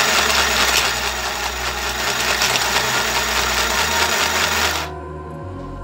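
Mini electric sewing machine running steadily, its small motor and needle mechanism going at full speed; it cuts off suddenly about five seconds in, and music follows.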